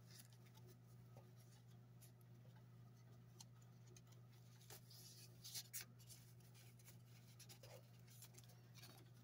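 Near silence: faint rustles and light taps of paper as the pages and pockets of a handmade paper journal are handled, a few a little louder about halfway through, over a steady low hum.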